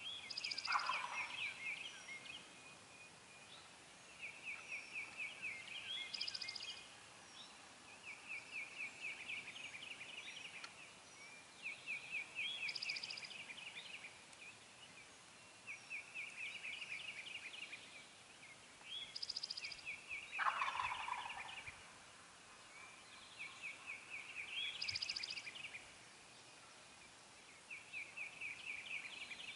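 Wild turkey gobblers gobbling over and over, a rapid rattling call about every four seconds. Two of the gobbles, about a second in and about two-thirds of the way through, are fuller and lower.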